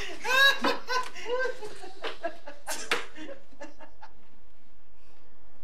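Laughter, strongest in the first second or so, trailing off into a few short laughs and clicks by about three seconds in, then faint room tone.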